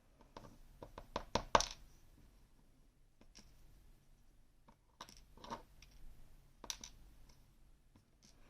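Small metal clicks and clinks from a BKS lock cylinder being taken apart by hand. A quick run of clicks comes in the first couple of seconds, then a few scattered clicks and a brief scrape.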